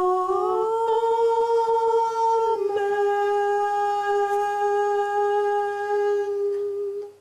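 A woman's solo voice sustaining long wordless notes. It glides up to a higher note about half a second in, steps down slightly about two and a half seconds in, and holds that note until it stops just before the end.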